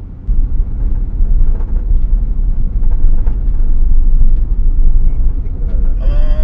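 Loud low rumble of a moving vehicle heard from inside its cab, engine and road noise, rising suddenly just after the start as it moves off. Near the end a steady pitched tone with many overtones comes in over it.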